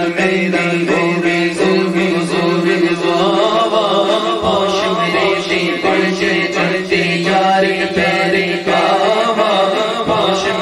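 Male naat reciters singing a devotional naat in a chant-like melody over a steady held drone, amplified through microphones and a sound system.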